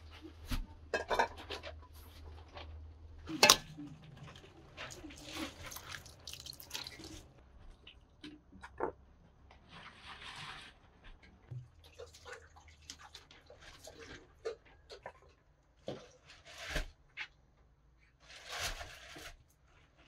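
Tomatoes being washed by hand in an aluminium basin: water poured and splashed in several spells, with clanks and knocks of a metal bowl against the basin, the loudest clank about three and a half seconds in.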